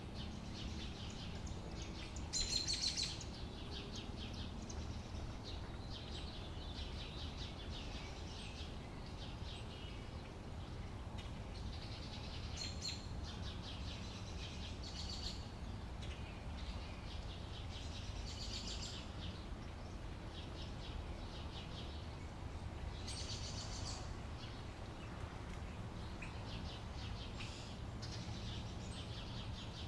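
Outdoor summer ambience: small birds chirping on and off throughout, with louder clusters of chirps a few seconds in and again about three-quarters of the way through, over a steady low background rumble.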